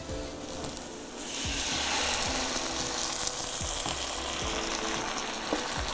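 Sliced onion and vegetables frying in coconut oil in a frying pan, sizzling steadily. The sizzle grows much louder about a second in.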